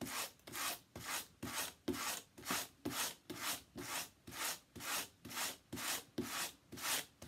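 A small hand brush stroked repeatedly over combed-out paracord strands, fluffing the fibres out into whiskers. Even scratchy strokes, about two a second.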